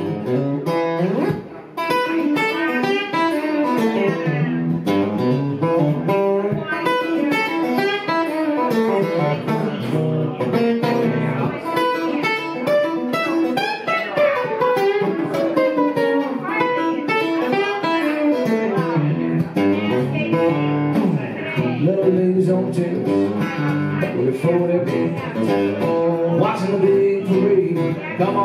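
Electric guitar playing an instrumental break between sung verses: quick runs of notes with bent notes that slide up and down in pitch. There is a short dip in volume about a second and a half in.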